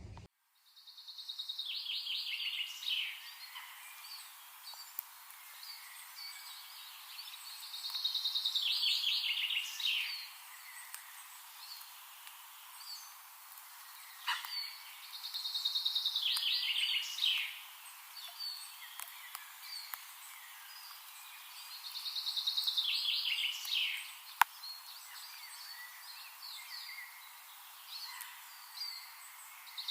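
A songbird singing the same phrase over and over: a quick trill that slides down in pitch and lasts about two seconds, coming roughly every seven seconds, with faint chirps between. A single sharp click near the end.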